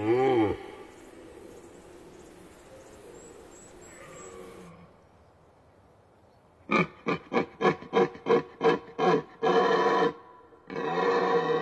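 Red deer stag roaring in the rut. A roar that rises and falls in pitch ends just after the start. After a quiet lull, a run of about ten short roars at roughly three a second starts past halfway, followed by two longer roars.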